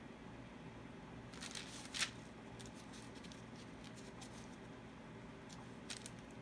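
Hand-handling sounds at a wet acrylic-poured ceramic tile, with a gloved hand working a wad of paper towel at its edge: light rustling and a handful of short clicks, the sharpest about two seconds in and a last pair near the end, over a low steady room hum.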